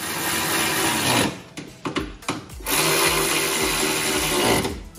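Power driver running a bolt into the tractor's side bracket in two runs, the first about a second long and the second about two seconds, with a short pause between.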